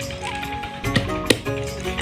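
Background music with a melody of held notes, and two sharp knocks about a second in.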